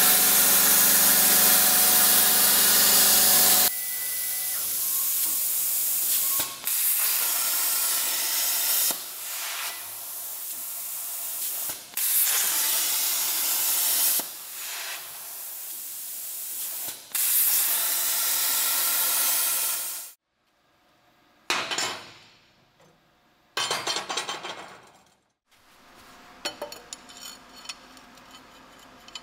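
Plasma torch on a Langmuir Systems CNC plasma table cutting steel plate: a loud, steady hiss of air and arc, in several stretches that stop and start abruptly. After a quieter stretch with two short bursts, light metallic clinks come near the end.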